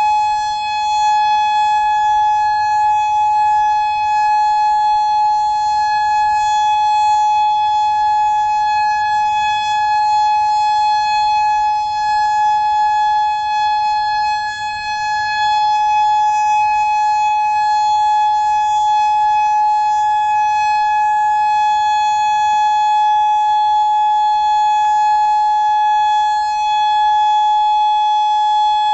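Federal Signal Modulator 6024 electronic outdoor warning siren sounding its steady alert signal: one loud held tone with overtones that neither rises nor falls.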